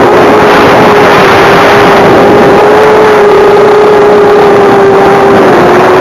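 FPV model aircraft's motor and propeller, picked up by its onboard camera microphone: a loud, steady whine at a nearly constant pitch over heavy rushing wind noise, dipping slightly in pitch near the end.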